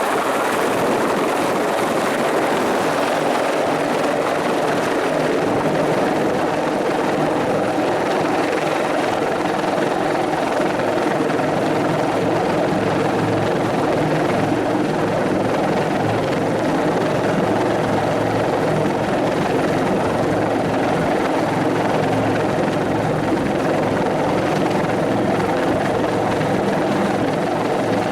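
Bell 412 helicopter running steadily, the beat of its four-blade main rotor over the whine of its twin turboshaft engines.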